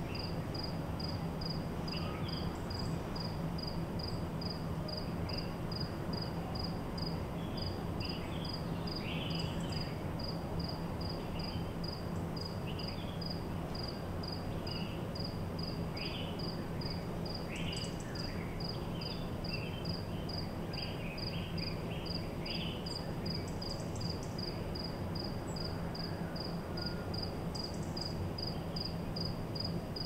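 Steady hum of a hotel ventilation system under a single insect chirping evenly about twice a second, with faint, scattered bird calls in the middle.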